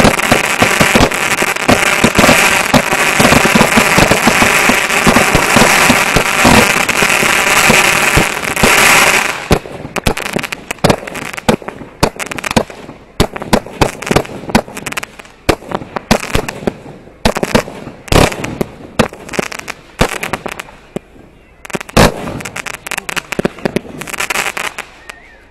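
Fireworks set off at close range. For about the first nine seconds there is a dense, continuous hissing roar as they fire upward from the launch point; it stops abruptly. Scattered sharp cracks and pops follow, with two louder bangs in the last third.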